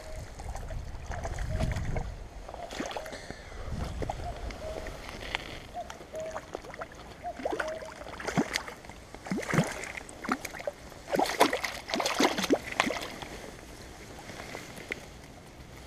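River water sloshing and splashing in irregular bursts, busiest in the second half, with a low rumble in the first few seconds.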